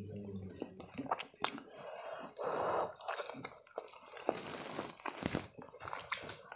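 Mouth sounds of a person eating spicy instant noodles: wet chewing and lip smacks with short clicks, a noisy slurp about two and a half seconds in and a longer hissing slurp of noodles about four seconds in.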